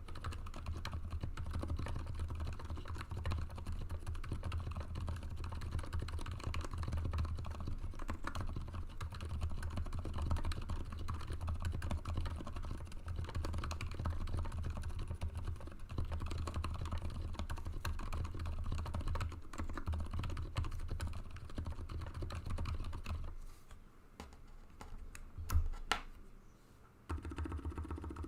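Continuous fast typing on a custom Anne Pro 2 keyboard with lubed Cherry Silent Red switches. About 23 seconds in the typing stops and keys are pressed one at a time, one of them louder than the rest, then a short run of typing follows near the end.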